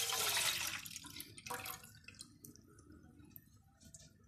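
Milk being poured into a metal saucepan, a splashing pour that tails off about a second in, then faint drips.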